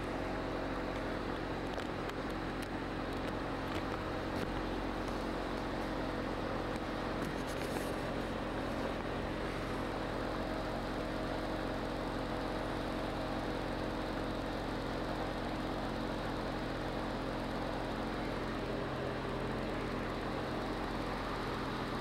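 Motorboat engine running steadily at cruising speed: a constant drone that holds one pitch, over a steady rush of wind and water noise.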